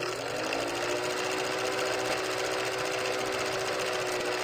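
Old film projector running as a sound effect: a fast, steady mechanical clatter with a steady motor hum.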